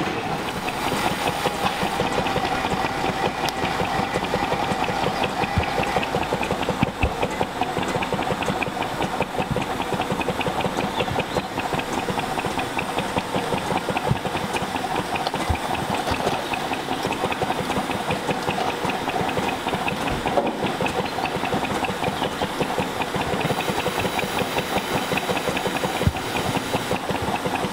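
Miniature steam engine running, with rapid regular exhaust beats over a steady hiss of steam.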